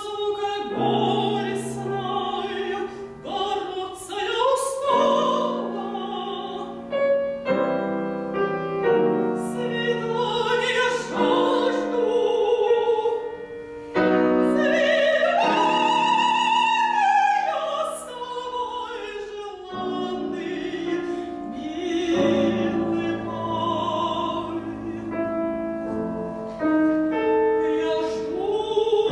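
Soprano singing an operatic concert aria with wide vibrato, accompanied by grand piano chords. The music comes in suddenly at the start after a brief hush.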